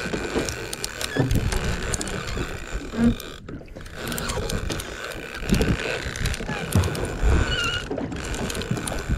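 Small fishing boat at sea: a steady rush of wind and water with faint steady whine and irregular low knocks and thumps.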